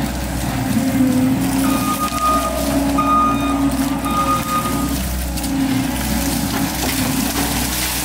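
Compact track loader's diesel engine running under load, with its backup alarm beeping in a run of short beeps through the middle as the machine reverses.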